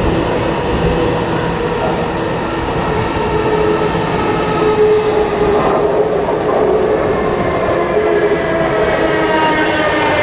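Electric train running, a steady rumble with a motor whine in several tones that slowly shifts in pitch, and brief high squeals from the wheels about two and four and a half seconds in.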